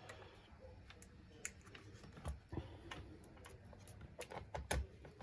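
Faint, scattered light clicks and knocks from a laptop motherboard being set back into its chassis and lined up. A couple of firmer knocks come a little past the middle and near the end.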